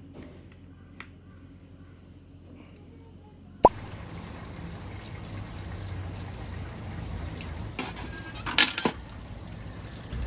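A single sharp click about a third of the way in, then steady outdoor background noise. Near the end a coin drops through the slot of a fee box and clinks inside it.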